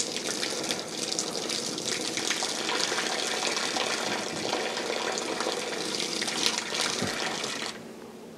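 A yearling filly urinating: a steady stream of urine hitting the ground, which stops suddenly near the end.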